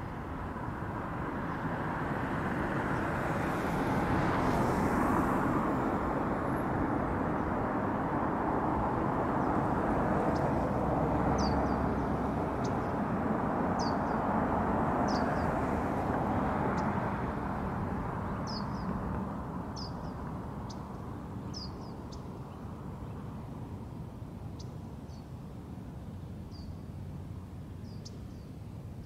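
Outdoor ambience: a vehicle passing, its rushing noise swelling over the first few seconds and fading about two-thirds of the way through. Small birds give short, high chirps, repeated every second or so from about the middle onward.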